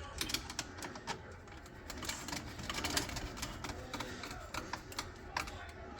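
Irregular small clicks and taps from a garbage disposal's drain fitting being turned and tightened by hand, plastic and metal parts knocking against each other.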